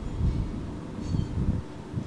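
Gusty wind buffeting the microphone, an uneven low rumble that surges and drops several times.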